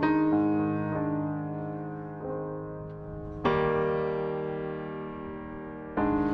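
Background music: slow, gentle piano chords, each struck and left to ring and fade, with a new chord about every one to two seconds.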